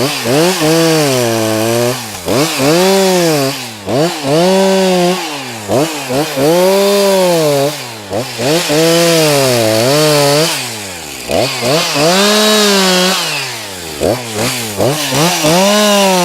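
Professional-size chainsaw revved up and down about a dozen times, its pitch rising and falling roughly once a second, as it makes short cuts into rhododendron stems.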